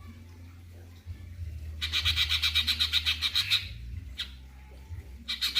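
Cucak cungkok songbird singing in two rapid trills of quickly repeated high notes, each about one and a half to two seconds long: one about two seconds in, the other starting near the end, with a single short falling note between them. A steady low hum runs underneath.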